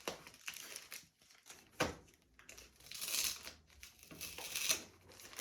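Protective packaging crinkling and rustling in short bursts as a replacement laptop LCD screen is unwrapped, with one sharp click about two seconds in.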